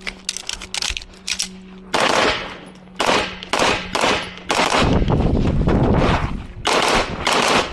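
Pistol shots fired in quick strings during a timed USPSA/IPSC stage. There are a few faint cracks in the first second and a half, then loud shots in groups, densest from about the middle on.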